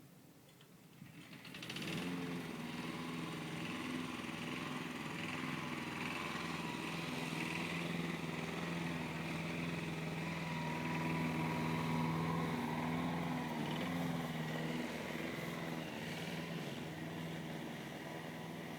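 A steady, even drone with a low hum, starting about a second and a half in and holding level.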